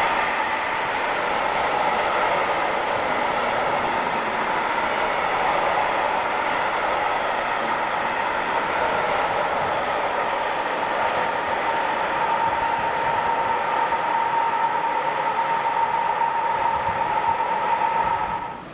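Freight train of tank wagons rolling past: a steady rush of wheels on rail, with a high ringing tone that grows stronger in the second half. The sound falls away suddenly near the end as the last wagon clears.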